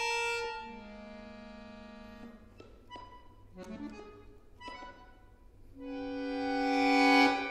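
Solo accordion playing contemporary music: a held chord fades, a low reedy cluster sounds for about a second and a half, then a few short clipped notes and clicks. About six seconds in a full chord swells steadily louder and breaks off near the end.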